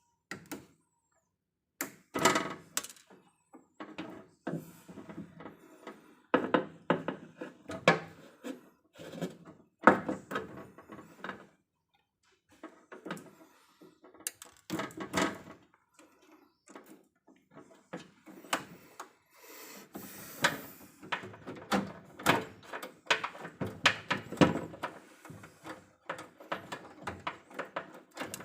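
Irregular knocks, clunks and clatter of hand work on an electrical distribution panel while burnt cables are being repaired, with short pauses between bursts.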